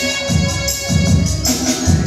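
Live band playing an instrumental passage: sustained electronic keyboard chords over a steady tabla beat about twice a second, with jingling hand percussion on top.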